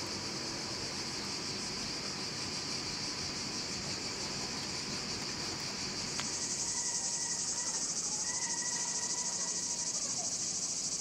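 A chorus of cicadas chirring in a steady high band. It gets louder, with a fast pulsing, about halfway through.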